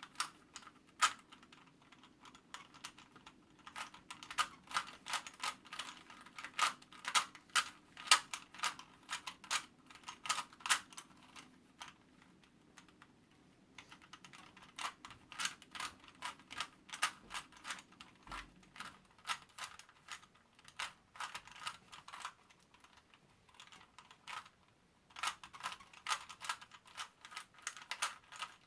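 A Rubik's brand 3x3 cube being turned fast during a speedsolve: dense runs of plastic clicks as the stiff layers snap round, broken by two short pauses about halfway through and near the end.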